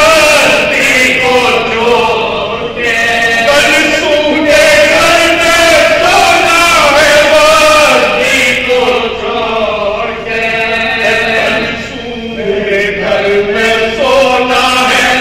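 Soz, a Shia mourning elegy, chanted unaccompanied by a small group of men: a lead voice holds long, slowly bending notes with the others singing along behind him.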